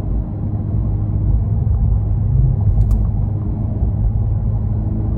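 Low rumble of a 2022 Honda Civic Si's 1.5-litre turbocharged four-cylinder engine and road noise, driving in third gear from about 40 on the stock tune. A single brief click about three seconds in.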